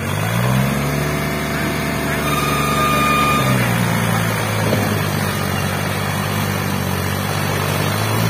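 New Holland 3630 tractor's diesel engine working hard under a heavy load, pulling two loaded sugarcane trolleys. The engine note rises in the first second, holds, then drops to a lower steady pitch a few seconds in.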